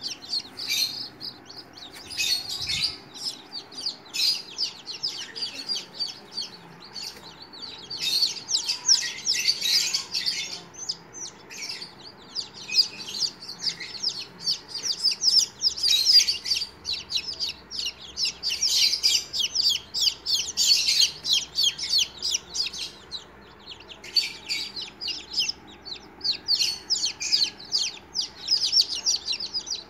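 Newly hatched chicken chicks peeping: many shrill peeps in quick runs from several chicks at once, with short lulls between the runs.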